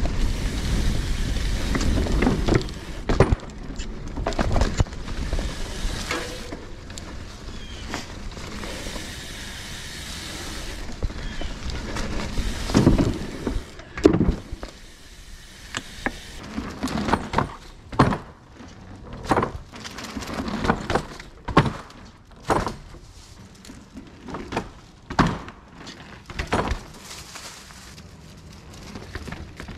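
Mountain bike riding over wooden trail features such as teeter-totters: a string of separate wooden thunks and knocks as the tyres cross planks and the teeter boards tip, after a low rumble of riding in the first few seconds.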